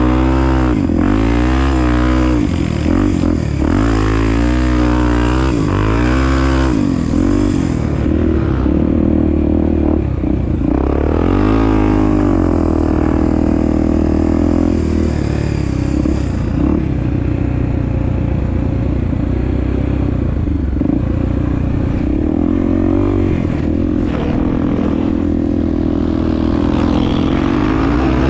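Honda Tornado 250's single-cylinder four-stroke engine running while the motorcycle is ridden, with the revs rising and falling often over the first half and running steadier after that.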